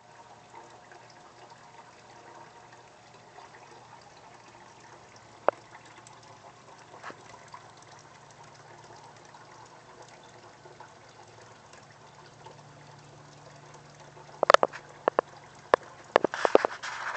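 Water from a hydroponic system's PVC return pipe pouring steadily into a plastic bucket reservoir, over a low steady hum. Several sharp clicks or knocks come about fourteen seconds in and near the end, louder than the water.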